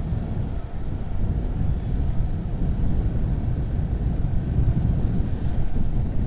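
Wind rushing over the microphone of a moving motorcycle, with the motorcycle running steadily beneath it as a low rumble.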